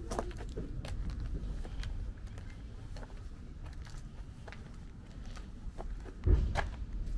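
Footsteps on gritty asphalt: scattered small crunches and clicks over a steady low rumble, with one low thump about six seconds in.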